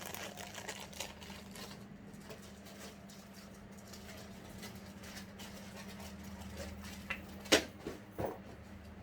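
Light rustling and small scattered clicks of handling, as the watches and their plastic packaging are picked up and moved, with a couple of sharper clicks near the end. A steady low hum runs underneath.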